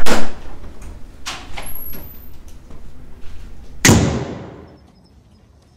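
Apartment front door opened with a loud clunk at the start, a few lighter knocks, then the door slammed shut about four seconds in, its bang dying away quickly.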